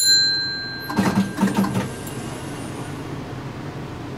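Tram's bell or chime gives a bright ding, struck twice, the second strike just at the start and ringing out over about a second. A brief low clattering about a second in follows over the steady hum of the stationary tram.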